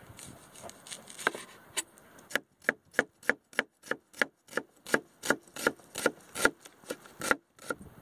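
Knife slicing a peeled onion on a wooden cutting board: a few soft cuts at first, then from about two seconds in a steady run of crisp knocks, about three a second, as the blade meets the board with each slice.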